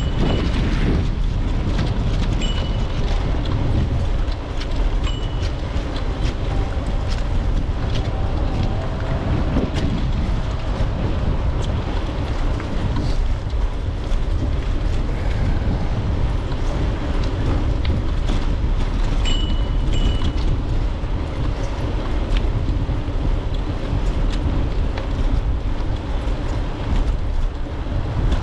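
Wind rushing over an action camera's microphone on a moving bicycle, a steady low rumble, with light clicks and rattles from the ride.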